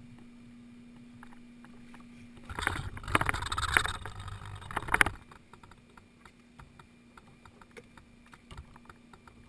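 Close rustling, rubbing and knocking of an action camera being handled, loud for about two and a half seconds starting a couple of seconds in. It then gives way to a scatter of faint small clicks over a steady faint hum.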